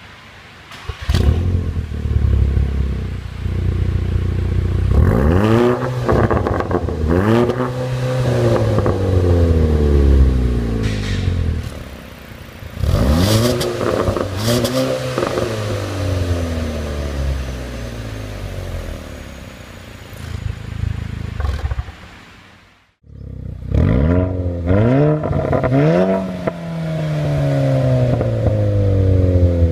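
Volkswagen Golf R Mk6's turbocharged 2.0-litre four-cylinder through a Fi Exhaust turbo-back valved exhaust with catless downpipe, heard at the tailpipes as it is blipped repeatedly, each rev rising sharply and falling back to idle. After a short break a little over three-quarters of the way in, the engine is blipped again three times with the exhaust valve open.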